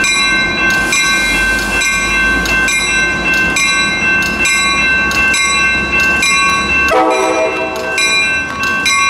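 NCTD Coaster commuter train, cab car 2307 leading and F40PHM-2C locomotive 2102 at the other end, moving slowly along the platform with a low rumble and steady high ringing tones. Its horn sounds one chord blast about seven seconds in, lasting about two seconds.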